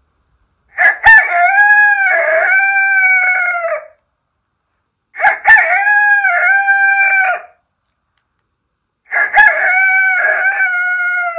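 A person imitating a rooster crowing by voice: three cock-a-doodle-doo calls about four seconds apart, each with a short rising start and a long held end.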